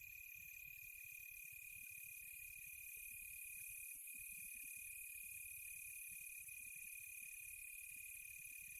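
Faint, steady chorus of insects such as crickets, several high-pitched drones held without a break, over a low uneven rumble.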